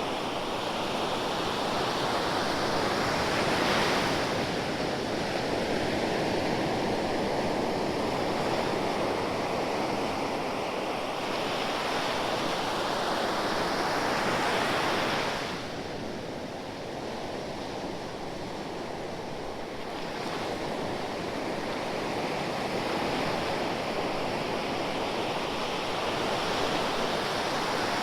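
Ocean surf: waves breaking and washing on the shore in a continuous rush that swells and eases every several seconds, falling off sharply about halfway through as a wave draws back.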